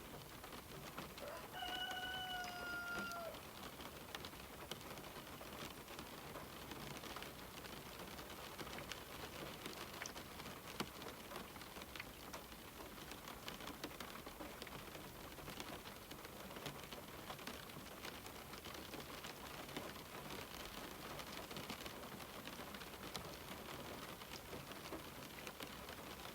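Steady rain on a window glass with many small drop ticks. About a second and a half in, a bird gives one call about two seconds long, held on one pitch and dipping at the end.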